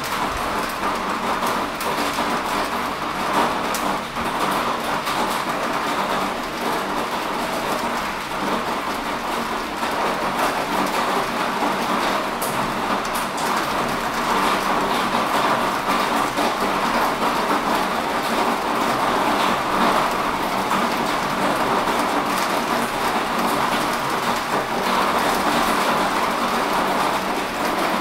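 Heavy rain falling steadily: a dense, even hiss with many close drops ticking through it.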